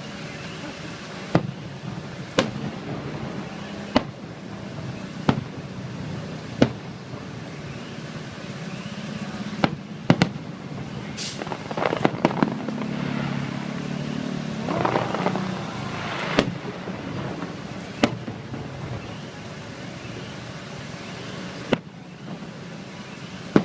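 Fireworks shells bursting overhead: about a dozen sharp bangs at irregular intervals, one to four seconds apart, some in quick pairs.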